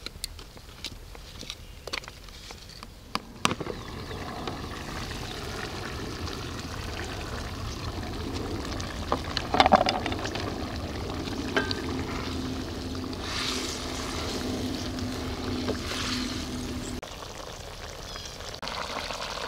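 Chicken feet curry boiling in a kadhai, a steady bubbling. There are sharp clicks in the first few seconds and a brief louder sound about halfway.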